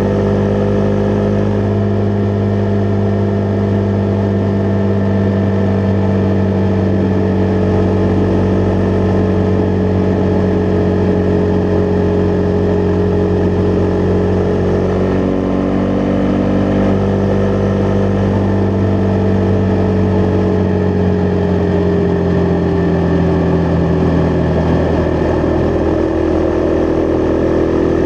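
Husqvarna Vitpilen 401's single-cylinder engine running steadily under way, heard from on the motorcycle. The engine note holds nearly level and eases slightly lower in the last several seconds.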